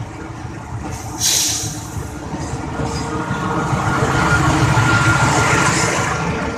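Train passing close by, its rushing noise swelling to a peak past the middle and then easing, with a short sharp hiss of air about a second in.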